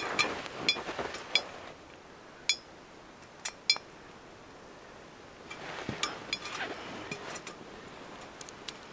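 Stainless steel frying pan clinking lightly as it is handled: a few sharp clinks with a brief metallic ring in the first second and a few more around three seconds in, with rustling, and more rustling as the pan goes back down into the coals near the end.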